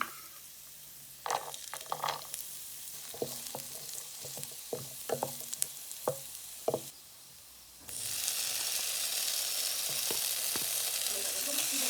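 Kitchen utensils tapping and clicking against a frying pan, then a loud, steady sizzle of food frying in hot oil starts suddenly about eight seconds in.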